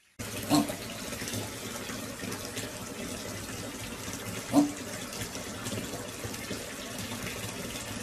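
Water running steadily from a tap into a sink or tub, with a short pitched sound about half a second in and another about four and a half seconds in.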